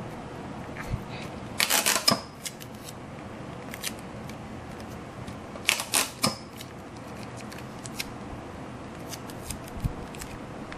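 Hand-work on a model: two short clusters of sharp clicks and crackles, about two seconds in and again about six seconds in, with a few lone ticks between, over a steady low hiss.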